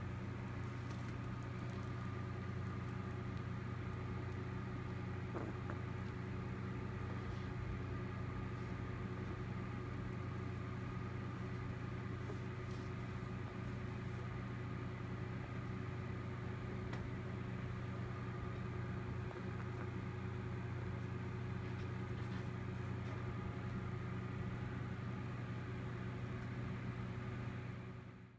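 Steady low mechanical hum, like a motor or appliance running, with a few faint ticks.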